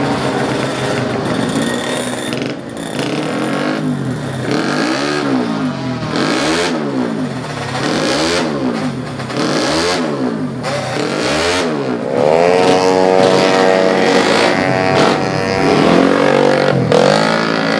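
Race-tuned 130cc scooter engine revved in repeated throttle blips, the pitch rising and falling about every one and a half to two seconds over steady running. From about twelve seconds in it runs louder and higher.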